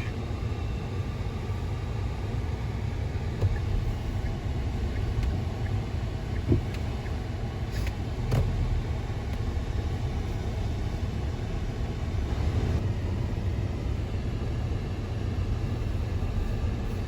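Steady low rumble of a moving car, with a few faint knocks.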